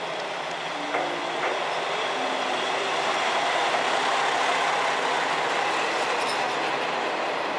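JR West KiHa 120 diesel railcar pulling slowly into the platform: its diesel engine runs under the rumble and hiss of the wheels on the rails, growing louder as the car comes alongside, with two short clicks about a second in.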